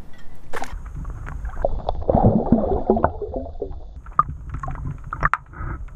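Water splashing and gurgling around a hooked fish being brought up beside a kayak, heaviest about two seconds in, with a few knocks and low wind rumble on the microphone.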